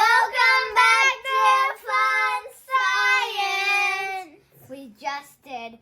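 A child singing: a run of short held notes, then one long note; a child speaks briefly near the end.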